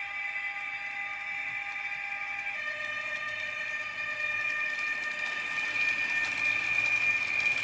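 H0 model IC2 double-deck train running past, giving a steady high electric whine of several tones that shift in pitch once, about two and a half seconds in. The rolling rattle of the wheels on the rails grows louder near the end as the coaches pass close by.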